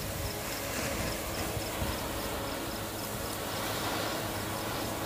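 Flower pot ground fountain firework spraying sparks: a steady, rushing hiss.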